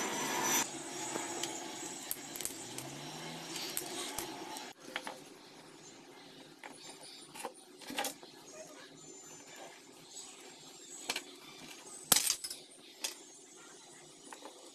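Scattered light clicks and taps of a small metal DC motor and a wire being handled on a wooden block, over a steady background hiss that drops away about five seconds in.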